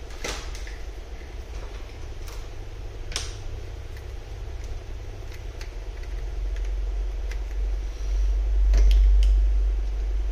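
Steady deep background rumble that swells about eight seconds in, with a few faint sharp clicks scattered through it.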